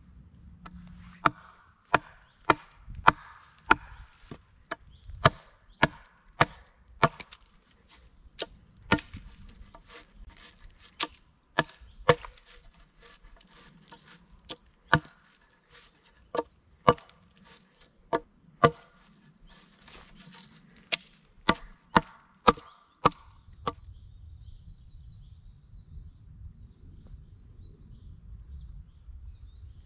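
Hatchet chopping into a thin standing tree trunk: a steady run of sharp wooden strikes, about one and a half a second, that stops about 23 seconds in. After that there is only a low outdoor background with faint high chirping.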